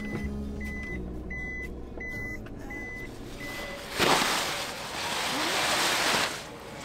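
A car's reverse warning beeper sounds a short, even, high beep about every two-thirds of a second and stops a little past the middle as the car is parked. Then a loud rustle of a large fabric cover being handled lasts about two seconds.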